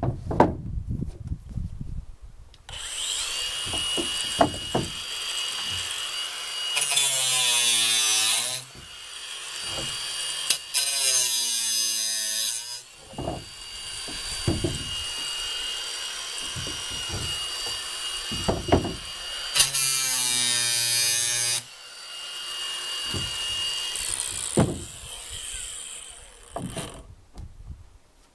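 A handheld electric power tool runs with a steady high whine, starting a few seconds in and stopping near the end, with three louder stretches as it cuts into wooden boards. A few knocks of wood being handled come at the start.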